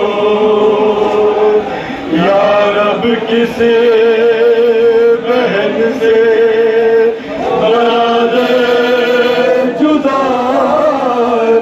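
Men's voices chanting a noha, a Shia mourning lament, through a microphone: long held notes with a wavering pitch, sung in phrases a few seconds long.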